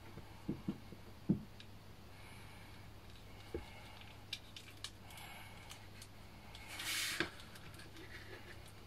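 Faint small clicks and taps of a plastic S.H.Figuarts action figure being handled while a tiny hand part is pegged onto its wrist, with a brief soft rustle near seven seconds.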